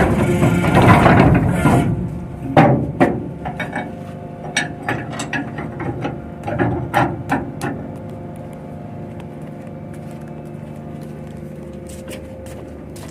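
Ship's anchor chain rattling out, loud and dense, stopping suddenly about two seconds in; then a string of irregular metal clanks for several seconds, followed by a steady low machinery hum.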